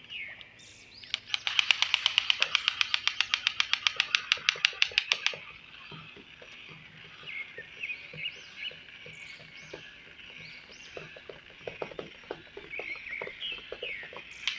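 A fast, even rattle of clicks, about eleven a second, for about four seconds, then birds chirping faintly.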